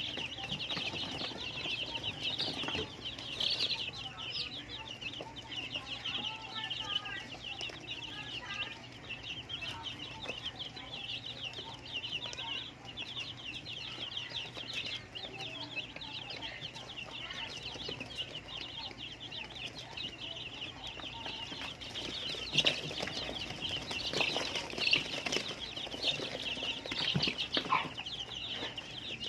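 A flock of Filipino native chickens clucking, over a continuous high-pitched chatter of rapid calls, with scattered sharp taps in the last several seconds.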